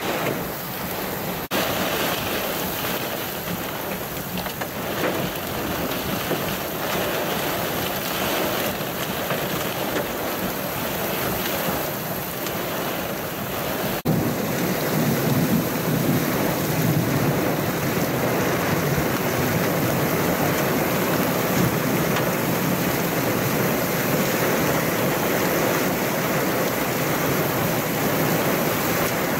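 Heavy rain driven by strong thunderstorm winds, a dense steady rush. It changes abruptly about halfway and is louder after that.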